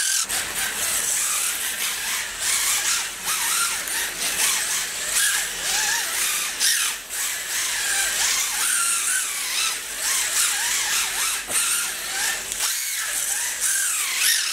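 Team Magic E4D electric RC drift car driving and sliding on a concrete floor. Its motor and gears whine, rising and falling in pitch again and again as the throttle is worked. The drivetrain is running on a freshly hand-cut replacement gear.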